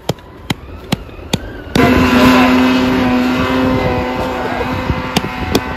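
Snowmobile engine running hard at high revs. It comes in suddenly about two seconds in and holds a nearly steady pitch as the sled carves across a steep powder slope. A few sharp clicks come before it.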